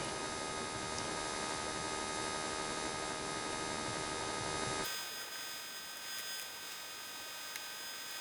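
Steady electrical hum with hiss and no distinct events. About five seconds in it cuts abruptly to a quieter hum.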